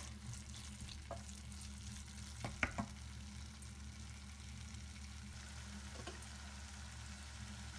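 Ground meat sizzling faintly in a stainless steel pot, with a wooden spoon knocking and scraping against the pot a few times in the first three seconds. A steady low hum runs underneath.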